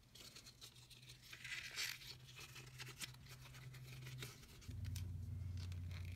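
Hands crumpling and flexing small pieces of vegetable-tanned leather, a faint run of crinkles and creaks. About four and a half seconds in, a steady low hum starts.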